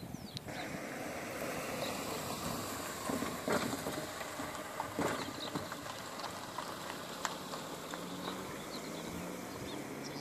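A car going slowly over the rough, gravel-strewn railway crossing: a steady rush of tyres on grit and broken asphalt with a few sharp knocks, and faint bird chirps.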